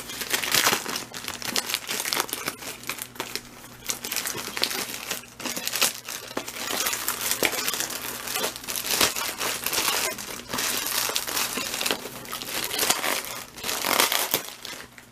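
A plastic mailer bag being crinkled and torn open by hand: dense, irregular rustling and crackling of the plastic.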